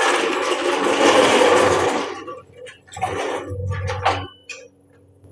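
Steel floor jack rolled across a concrete floor, its wheels and frame rattling and scraping for about two seconds. Then shorter clanks and scrapes follow as the jack is set in place.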